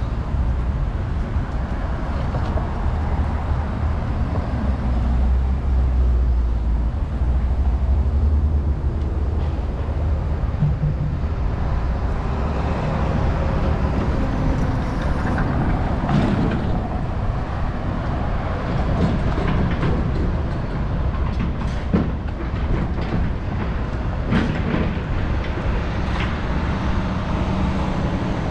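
Steady low rumble of vehicle noise, with scattered clicks and knocks in the second half.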